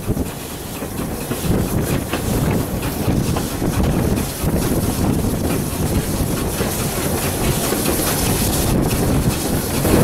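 Steam tram train running along the track, heard from a carriage: a steady rumble of the wagons on the rails, with wind buffeting the microphone.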